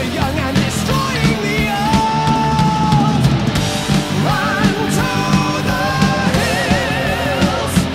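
Rock music with a singer holding long, wavering notes over guitars and drums.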